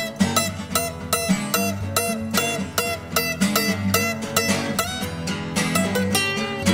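Instrumental passage of two acoustic guitars, a twelve-string and a six-string, with plucked notes coming about four or five a second over ringing chords.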